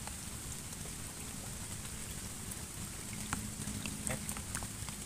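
Steady rain falling on a pond's surface, an even hiss with scattered sharp ticks, more of them in the second half.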